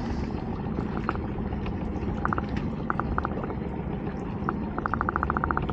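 Sea water sloshing against a small boat's hull, with a fishing reel clicking as line is wound in: a few scattered clicks, then a quick even run of about fifteen clicks near the end.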